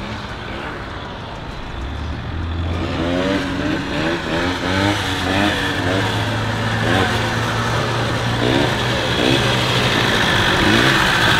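Sport quad (ATV) engine revving as it rides toward the camera in a wheelie. The pitch rises sharply again and again with short throttle blips over a steady low engine note, and the engine grows louder as it nears.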